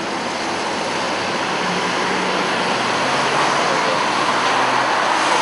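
Road traffic: engine and tyre noise of passing vehicles, swelling gradually and loudest near the end.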